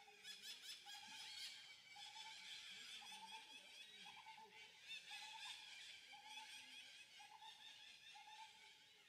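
Faint, overlapping high chirping calls, with a short mid-pitched note repeating about once a second throughout.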